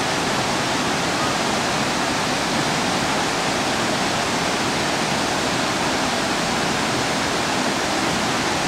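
Steady rush of a waterfall: falling water making a constant, even roar.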